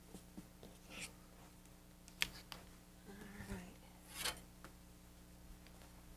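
Faint cutting and handling sounds: a rotary cutter rolling through quilt fabric and batting on a cutting mat, with fabric rustles and a sharp click about two seconds in.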